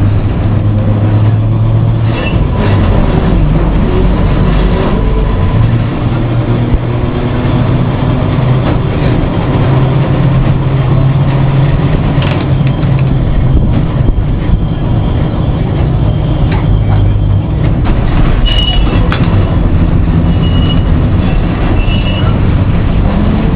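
Lisbon tram no. 730 running along street track, heard from its cab: a loud, steady rumble of wheels on rail with a low motor hum that shifts in pitch. A few short high squeaks come in the last few seconds.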